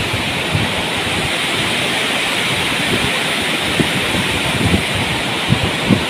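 Waterfall: a steady rush of whitewater pouring over rock.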